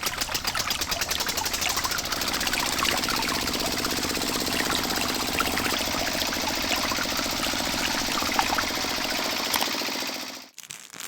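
A small electric motor runs steadily with a dense, fast rattle and a hum. It cuts off near the end.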